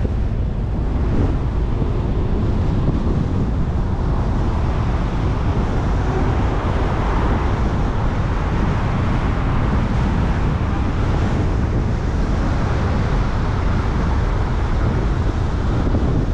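Steady road noise from a car driving along a city street: low tyre rumble with wind blowing on the microphone.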